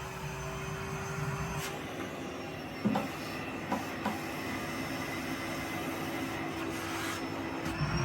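Battery-powered toy vacuum cleaner's small electric motor whirring steadily, with a few light plastic clicks about three and four seconds in.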